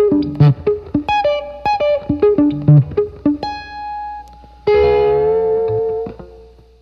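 Electric guitar playing a quick lick of plucked tritone note pairs spread over three octaves, picked with pick and fingers together. It ends on a struck chord about four and a half seconds in that rings and fades away.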